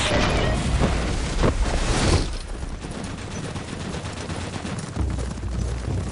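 Film gunfight sound effects: a rapid volley of gunshots mixed with an explosion, thickest in the first two seconds, then thinning out to scattered shots.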